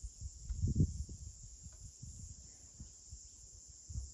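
Steady, high-pitched outdoor insect chorus with irregular low rumbles underneath, the strongest one a little under a second in.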